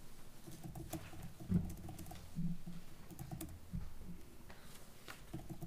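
Quiet meeting room with scattered light clicks and taps, and a soft thump about a second and a half in and another a second later: small handling noises of people settling and handling papers.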